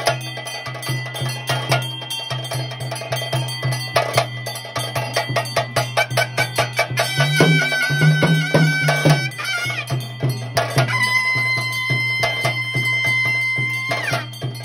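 Traditional temple ritual music: drums and small metal percussion beat a steady, fast rhythm while a wind instrument holds long notes over a continuous low drone, its pitch sliding down near the end.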